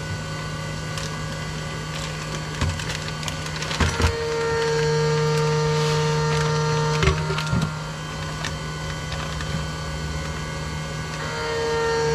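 Impulse heat sealer buzzing twice as its handle is pressed down to seal a plastic bag, once for about three seconds and again near the end. Between them come the crinkle of the plastic bag being handled and a few sharp clicks. Under it all runs the steady hum of a CNC mill.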